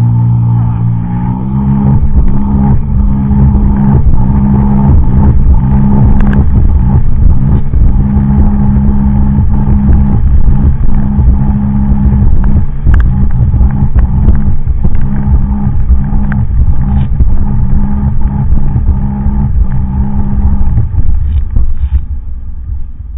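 Sea-Doo personal watercraft engine at high throttle, climbing in pitch in the first second or so and then running steadily at high revs, with repeated knocks of the hull slapping over the chop. Near the end the engine note drops away as the throttle eases off.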